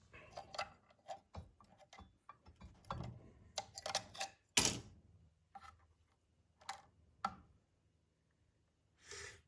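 Irregular clicks and knocks from handling the opened-up Tesla onboard charger during teardown, busiest in the first five seconds with the loudest knock about halfway, then a few sparse clicks and a short hiss near the end.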